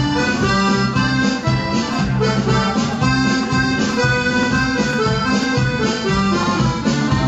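Accordion-led dance band playing old-time dance music, with a steady bass beat under the melody.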